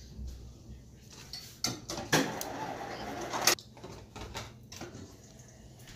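Tableware handling: a hard plastic takeout tray and a fork knock and scrape on a plate and table. There are a few sharp clicks, with a scraping, rustling stretch of about a second and a half in the middle.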